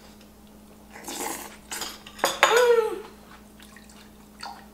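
A spoon clinking and scraping against a ceramic bowl while someone eats. Just past the middle comes the loudest sound, a short tone that falls in pitch.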